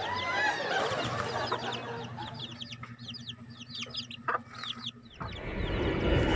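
A hen clucks near the start, then her chicks peep rapidly in many short high chirps, with one sharp knock about four seconds in. About five seconds in the birds give way to a louder rushing noise.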